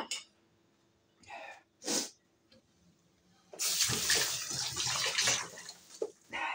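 Water running from a tap for about two seconds, starting about halfway through, after two short soft noises.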